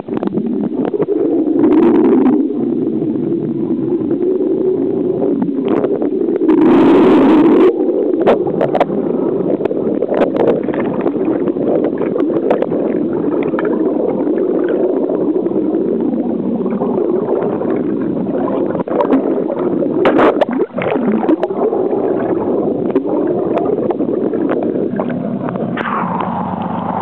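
Sea water rushing and bubbling heard by a camera's microphone held under the surface beside a boat: a steady muffled gurgling churn with scattered pops and knocks, and louder surges about 2 seconds in, around 7 seconds and around 20 seconds. Near the end the sound opens out as the camera breaks the surface.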